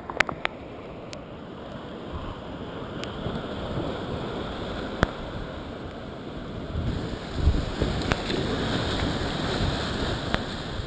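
Whitewater rapids rushing around a kayak, a steady wash of moving water with wind buffeting the microphone. A few sharp clicks and one low thump about seven seconds in.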